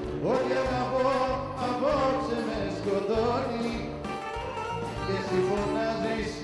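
Live band playing Greek popular music, a bouzouki among the instruments, with a melody over a repeating bass line.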